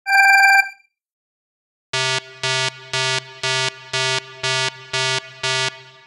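Electronic alarm sound effect: a short bright tone at the start, then after a pause eight even, ringing beeps at about two a second, stopping shortly before the end.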